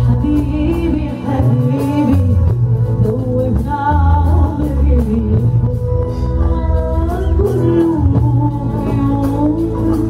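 A Moroccan Arabic pop song performed live: a woman singing a wavering melody into a microphone over an amplified band with keyboard, violin and drums, with strong steady bass underneath.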